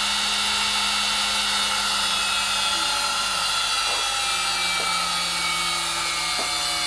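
Air-cooled CNC router spindle motor running steadily at speed with no load, a quiet, high-pitched whine made of several steady tones. One of the lower tones drops slightly about three seconds in.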